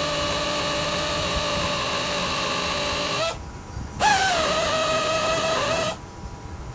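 Handheld power tool running with a steady high whine in two bursts: it cuts off a little past halfway, then starts again with a brief jump in pitch that settles lower, and stops near the end.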